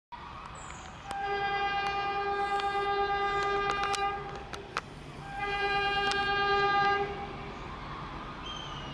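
Diesel locomotive horn sounding two long blasts from an approaching train, the first about three seconds long and the second shorter, about a second and a half.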